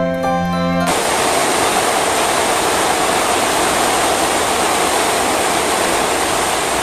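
Heavy rain pouring steadily onto a corrugated metal roof, a dense even hiss that comes in abruptly about a second in as background music stops.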